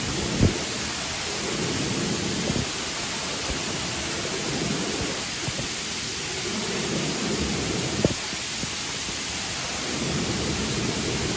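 Steady rushing of river water, with two short low thumps, one near the start and one about eight seconds in.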